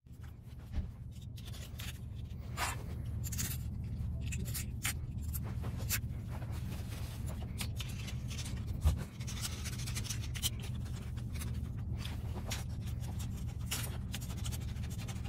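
Hex driver turning cap screws into an aluminium RC axle housing as they are snugged down: faint scratchy clicks and scrapes of the steel tool in the screw heads, scattered irregularly over a steady low hum.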